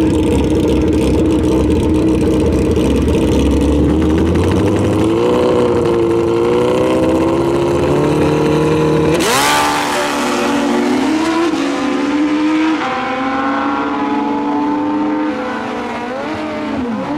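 Drag-racing motorcycle engines running loud at high revs, their pitch wavering. About nine seconds in there is a sudden loud burst, after which the engine notes climb and drop in steps as the bikes launch and shift up through the gears.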